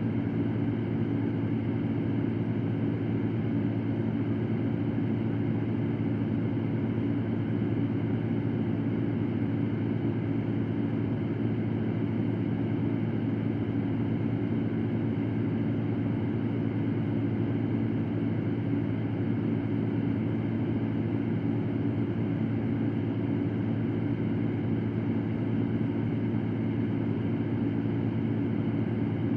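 Electric fan running steadily: an even whooshing noise with a low steady hum.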